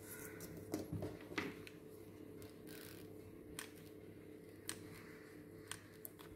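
Cardboard pieces handled and knocked together, loudest about a second in, followed by a few sharp, isolated ticks as a hot glue gun is worked along the joint; a faint steady hum lies underneath.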